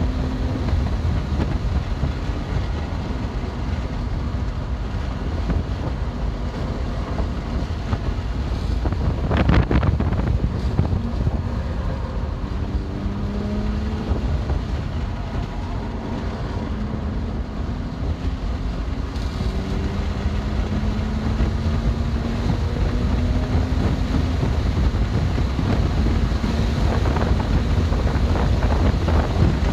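BMW M2 Competition's twin-turbo straight-six under load, its pitch rising in stretches as it accelerates through the gears, beneath heavy wind and road rumble. A louder burst about ten seconds in.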